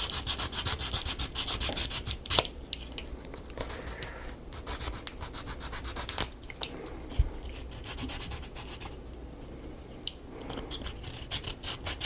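Sanding the paint off a painted wooden marble-run part by hand: quick back-and-forth rubbing strokes, about five a second, in several bursts with short pauses. The paint is being taken down so that the part will fit.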